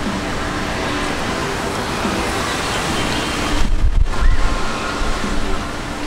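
Steady rushing outdoor noise, with a brief low rumble about two-thirds of the way in.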